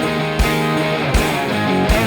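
Background music: guitar-led track with a steady drum beat.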